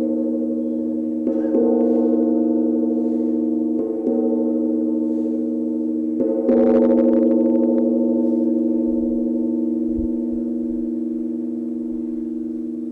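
Struck resonant metal meditation percussion ringing in a deep, wavering drone of several pitches. It is struck again about a second in, near four seconds and around six and a half seconds, and each strike swells the ringing.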